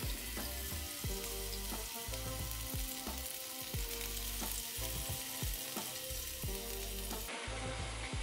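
Freshly air-fried chicken breasts sizzling in the opened air fryer basket, a steady hiss. Background music with low bass notes plays underneath.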